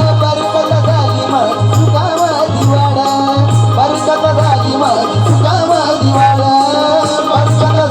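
Marathi devotional folk music: a wavering melody line over a steady low drum beat, with a rattling shaker-like rhythm on top.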